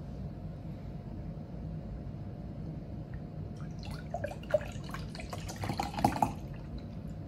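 Milk poured from a carton into a tall glass, glugging and splashing for about two and a half seconds, starting about three and a half seconds in.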